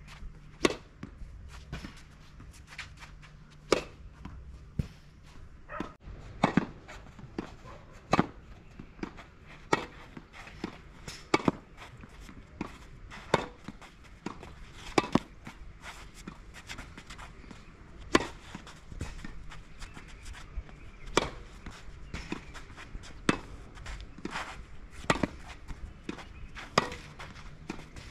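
Tennis racket strings striking a tennis ball: a sharp pop every second or two, some coming in quick pairs, during serve and volley practice.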